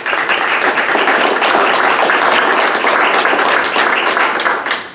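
Audience applauding: dense, steady clapping from many hands that fades out near the end.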